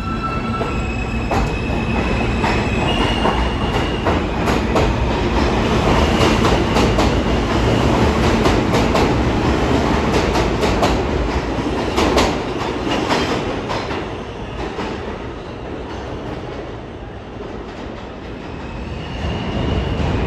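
New York City subway train pulling out of the station. Its propulsion whine steps up in pitch as it accelerates, followed by rumbling and wheel clatter over the rail joints with a few sharp squeals as the cars pass. It fades away, and near the end the whine of the next train approaching rises.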